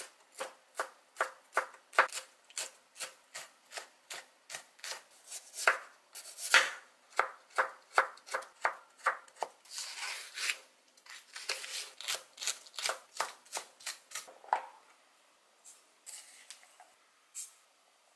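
Chef's knife chopping vegetables on a wooden cutting board, cutting red bell pepper into strips and then green onion: steady sharp strokes, about two or three a second. The chopping stops about fifteen seconds in, leaving a few faint clicks.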